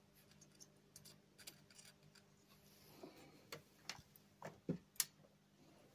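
Near silence with a faint low hum, broken by small scattered clicks and taps, a handful of them louder from about halfway through.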